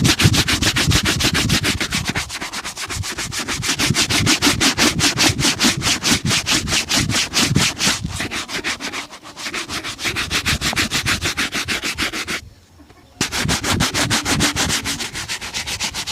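A shoe being rubbed briskly back and forth in a shoe shine: fast, even, scratchy strokes, several a second, with one short pause about three-quarters of the way through.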